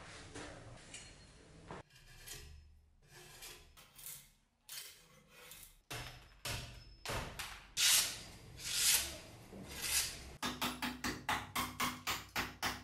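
Music with percussion; near the end a fast run of sharp knocks, about five a second.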